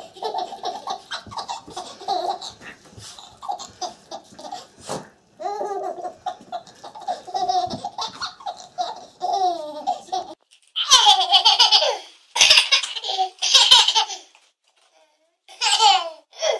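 A baby laughing in many short, repeated giggles, with a few louder bursts of laughter past the middle.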